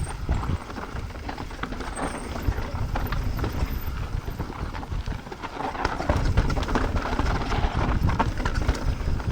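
Mountain bike riding fast down a rough dirt trail: tyres rumbling over the ground, with frequent sharp clatters and knocks from the bike over rocks and roots, busier and louder from about halfway on.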